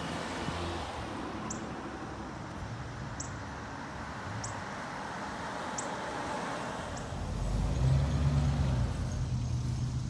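Cars driving past on a street, tyre and engine noise, with a low engine rumble growing louder about three-quarters of the way in and staying to the end.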